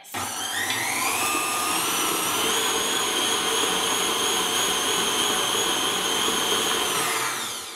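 Electric stand mixer with a flat beater running through cake batter in a steel bowl: its motor whine climbs in pitch over the first couple of seconds as it speeds up, runs steadily, then falls away near the end as it is switched off.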